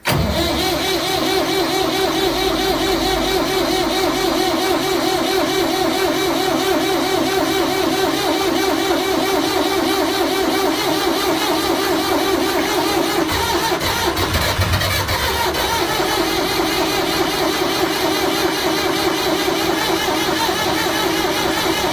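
Old desktop PC starting up: its fans and drive come on suddenly and run loudly with a steady, engine-like whir. The pitch shifts for a couple of seconds about two-thirds of the way through, then settles back.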